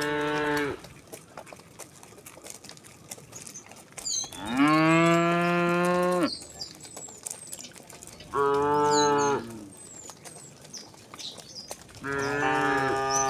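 Cattle mooing: four separate moos. One ends just under a second in, the loudest and longest runs about two seconds from about four seconds in, a shorter one comes about eight seconds in, and another starts near the end.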